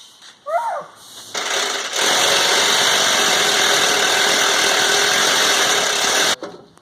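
A power tool running steadily for about four and a half seconds, then cutting off abruptly, while working on a stuck trailer hitch.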